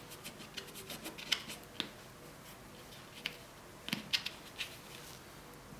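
Fingers and fingernails working a small piece of fondant against a silicone mat: faint, irregular clicks and taps, the sharpest a little over a second in and around four seconds in.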